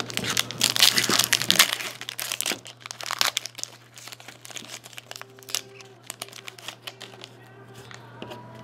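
Foil trading-card pack wrapper being torn open and crinkled by hand, with dense crackling for the first couple of seconds and another burst around three seconds in, then lighter rustling as the cards are handled.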